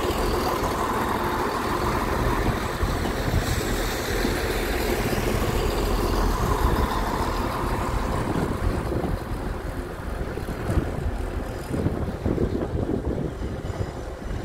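A Northern Class 170 Turbostar diesel multiple unit moving past along the platform. Its underfloor diesel engines and wheels on the rails make a steady running sound, which fades and becomes more uneven over the last few seconds as the train draws away.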